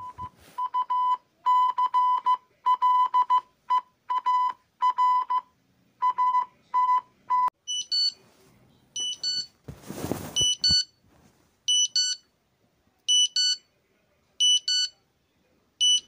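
Electronic emergency-alert alarm tones. First come uneven groups of short beeps at one mid pitch. About halfway through this changes to a different, higher alarm of paired chirps, each several tones together, repeating about once a second, with a short burst of static-like noise a few seconds into it.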